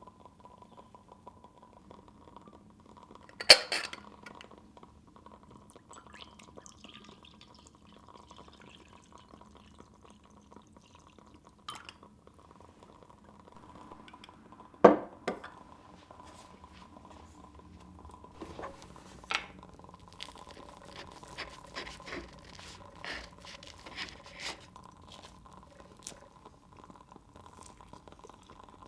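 Scattered light clinks and knocks of glass and dishware being handled, over a faint steady hum. The two loudest knocks come about three and a half and fifteen seconds in, and a run of small quick taps follows in the second half.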